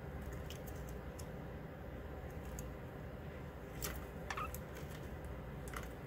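Budgerigars moving and pecking about a perch and seed tray: scattered light clicks and taps, with a brief soft chirp about four seconds in, over a steady low hum.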